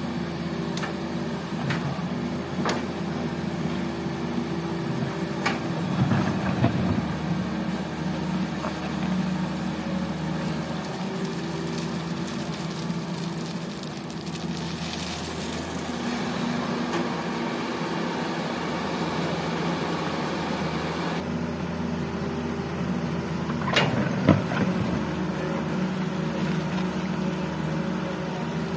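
Diesel engines of a Hitachi EX200 excavator and waiting dump trucks running steadily. There is a clatter of knocks about six seconds in, a hiss in the middle, and a sharp bang around 24 seconds in.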